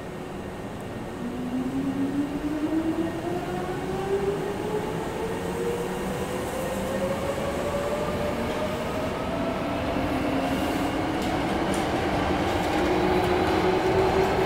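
Electric train pulling away, its traction motors' whine starting about a second in and climbing steadily in pitch as it accelerates. About eight seconds in, a second, lower whine begins and climbs again, over wheel and running rumble that grows louder.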